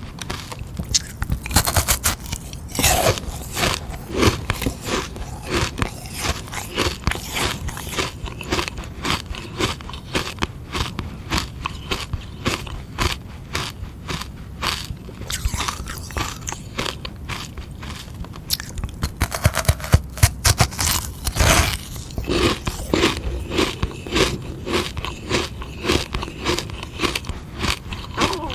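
Close-miked biting and crunching of frozen sugar-water ice: a dense run of crackling chews, with harder bites about two seconds in and again around twenty seconds in.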